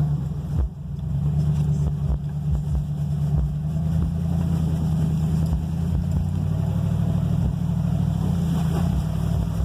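1999 Ford F-150 pickup's engine running steadily under load as the truck drives through a flooded mud pit, a low drone with occasional thumps from the truck working through the pit.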